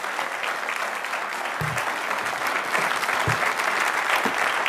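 A large seated audience applauding, a dense steady clapping that swells slightly louder.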